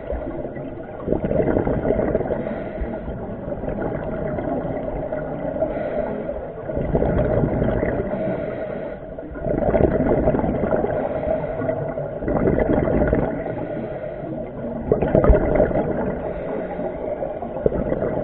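Muffled underwater noise: rushing water and bubbling that swells and eases every two to three seconds, over a steady low hum.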